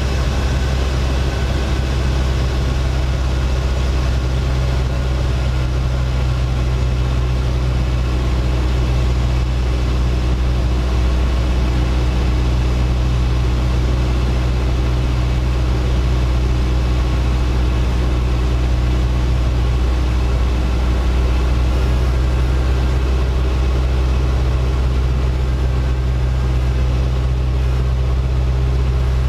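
Single-engine floatplane's engine and propeller running steadily in cruise flight, a deep even drone heard from inside the cockpit.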